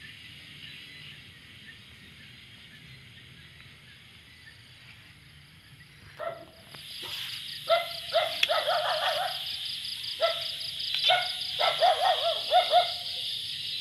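Night insects trilling steadily, with a fast pulsing high trill that grows louder about six seconds in. From then on, an animal calls in short clustered bursts of barks and wavering yelps, loudest in the last few seconds.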